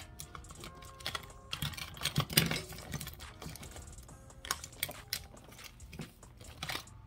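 Quick clicks and rattles of small items being handled, thickest in a cluster about two seconds in, over quiet background music.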